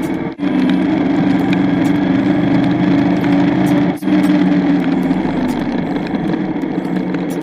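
Naza Blade motorcycle engine running steadily while riding in heavy rain, with a hiss of rain and spray over it. The sound drops out briefly twice, about a third of a second in and about four seconds in.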